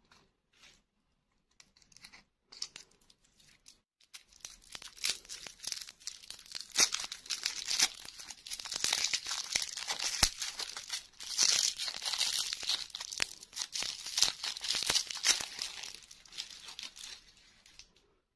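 Thin plastic lollipop wrapper crinkling and tearing as it is pulled off a hard-candy lollipop by hand. There are a few scattered crackles at first, then dense crinkling from about four seconds in, fading out near the end.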